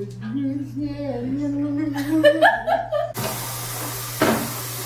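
A couple talking and laughing. About three seconds in this gives way abruptly to a steady hiss of food sizzling in a pan, with a utensil clinking against the pan about a second later.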